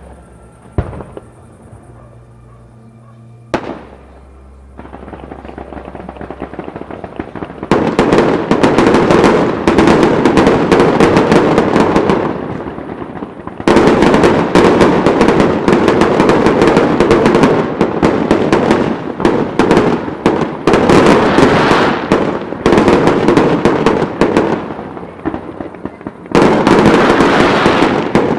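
Fireworks going off: a few single bangs, then long volleys of dense, rapid crackling from many small reports, broken by two short pauses.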